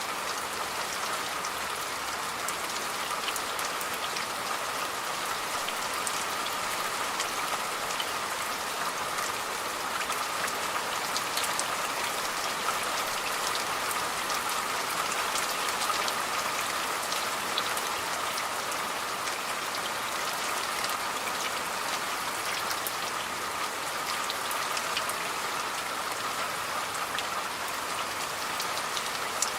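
Steady rain falling on a surface, with many individual drops pattering throughout.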